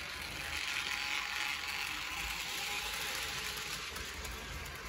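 Hornby Dublo 2-6-4 tank model locomotive running slowly with its goods wagons, its motor and gears whirring steadily and its wheels rattling on the metal three-rail track. It is loudest a second or two in, as it passes closest, then fades a little as it draws away.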